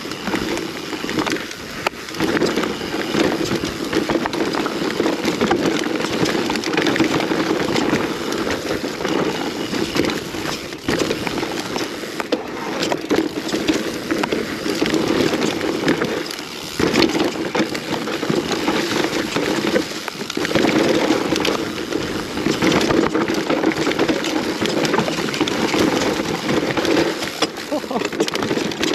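Mountain bike descending a rough enduro trail over roots and rocks: a constant rushing noise from the ride, broken briefly several times, with frequent knocks and rattles as the tyres and frame hit the obstacles.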